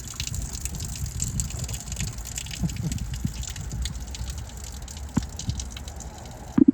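Mineral spring water running and splashing steadily, with many small splashes. One short, loud thump comes near the end.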